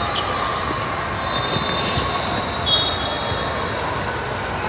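A basketball bouncing on a gym court over steady hall noise, with scattered knocks and a few short high squeaks.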